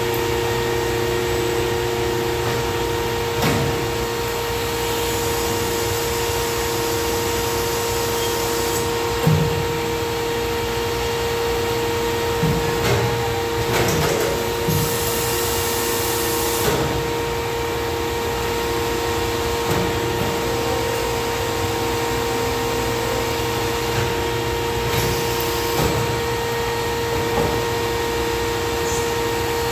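Hydraulic power unit of a Pines 075 CNC tube bender running with a steady whine. Its bend arm and clamp cycle with scattered clunks and a brief hiss of about two seconds, roughly halfway through.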